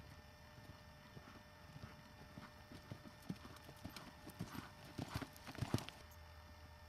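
Hoofbeats of a horse loping on a dirt arena, a quick run of dull thuds that grows louder and is loudest about five to six seconds in.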